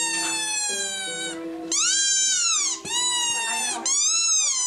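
A string of long cat meows, about one a second, each rising and then falling in pitch, over music with a stepping melody.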